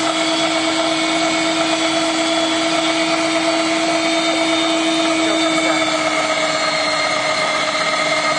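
Electric meat grinder running steadily with a kibbeh attachment, its motor whining at one steady pitch while it extrudes a hollow tube of bulgur dough for içli köfte shells. The pitch sags slightly about six seconds in as the dough is pushed through.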